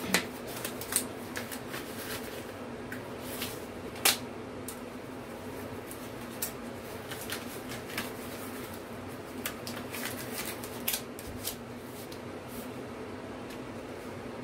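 Disposable gloves being pulled onto the hands: irregular crinkling rustles and small sharp snaps, two louder snaps about a second in and about four seconds in, over a steady low hum.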